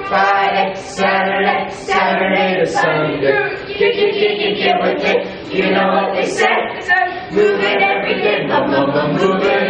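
A group of children singing together unaccompanied, in short phrases about a second long.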